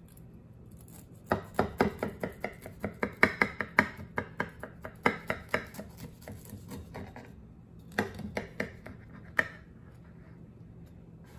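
Large kitchen knife sawing through the crisp baked kadayif (shredded pastry) crust of a kunefe: a run of quick crunching strokes, about three or four a second, starting about a second in, then after a short pause a shorter run about eight seconds in.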